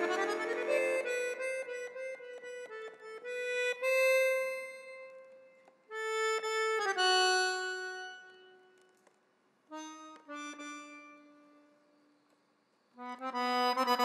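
Bugari piano accordion playing an unaccompanied passage in a free, halting tempo: a full chord with a quick run at the start, then short notes and held chords separated by pauses. A loud chord comes in about a second before the end.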